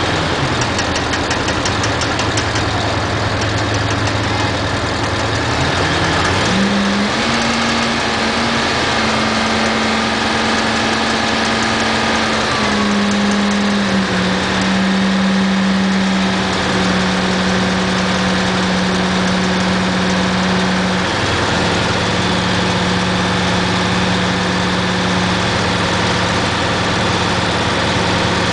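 Crane truck's engine idling, then raised quickly to a higher steady speed about six seconds in and held there, easing down slightly in two steps later on.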